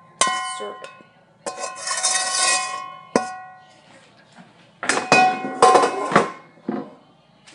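A metal frying pan knocked and scraped while stir-fried bean sprouts are served out of it, each knock leaving the pan ringing like a bell. There is a longer scrape about a second and a half in and a cluster of loud knocks around five to six seconds in.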